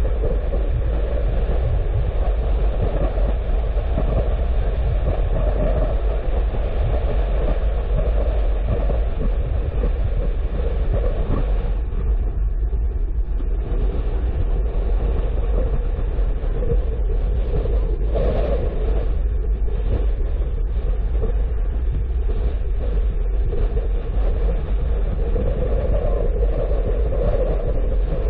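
Steady low rumble of a car being driven along a road: tyre, engine and wind noise without a break.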